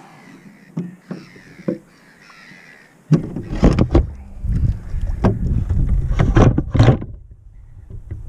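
Radio-controlled model boat on the water, heard through its onboard GoPro. A few light knocks come first. About three seconds in, a sudden loud rush of water and splashing hits and runs for several seconds, then eases near the end.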